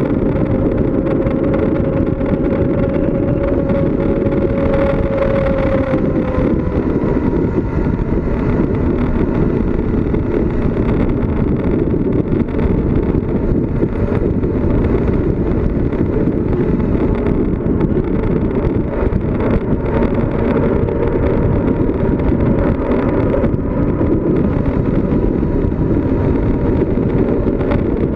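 Steady rush of wind over the microphone and tyre noise while riding a bicycle downhill, with a faint steady tone underneath.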